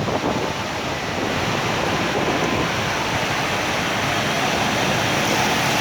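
Steady rushing noise of water on a flooded street.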